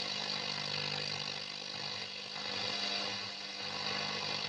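FM static hiss from a Sony CF-570S radio cassette recorder as its dial is tuned across the band, with a low steady hum underneath. No station is coming in, as the stations are off the air.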